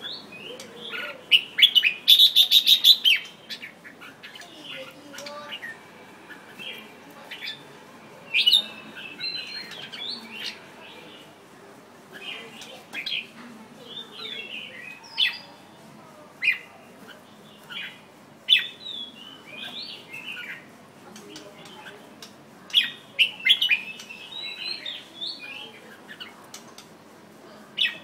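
Red-whiskered bulbul singing: short, bright whistled phrases every second or two, with a loud burst of rapid strokes about two seconds in.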